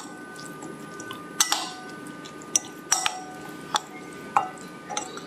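Metal spoon stirring a thick yogurt-and-spice marinade in a glass bowl, clinking against the glass about seven times, each clink leaving a short ringing tone.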